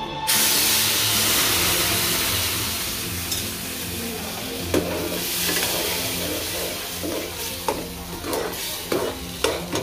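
Water poured into semolina roasted in hot ghee: a sudden loud sizzle just after the start that slowly dies down. A steel slotted spoon stirs the mixture, knocking against the pan several times in the second half.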